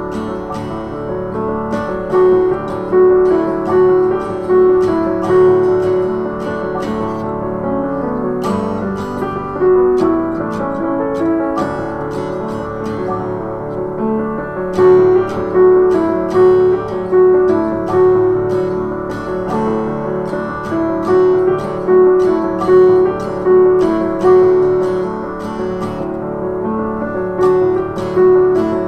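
Music with acoustic guitar and piano, with regular strummed beats that grow more pronounced about halfway through.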